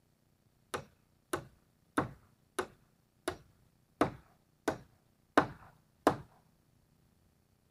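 Hammer driving a nail into old barn metal roofing: nine sharp blows at a steady pace of about one and a half a second, each with a short ring.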